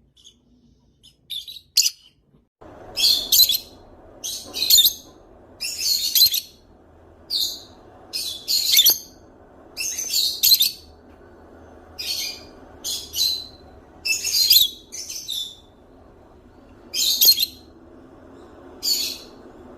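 Parrot calling: a string of short, shrill squawk-like calls, about one a second. A faint steady background noise comes in beneath them about three seconds in.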